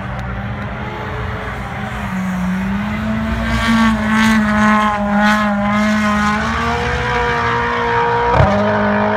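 Rally car engine revving hard as the car drifts past on snow and ice, its note climbing and holding high. About eight seconds in there is a sharp crack with a momentary break in the engine note, then it picks up again.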